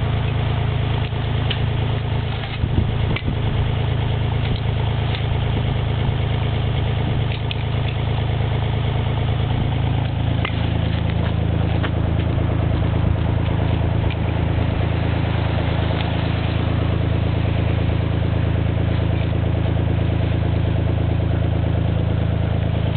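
An engine idling steadily, with a slight change in its note about halfway through and a few light knocks in the first seconds.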